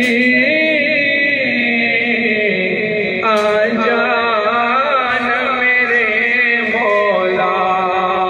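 Vocal music with a voice chanting in long, held, wavering notes, played back through a Wuzhi Audio mini Bluetooth amplifier being demonstrated.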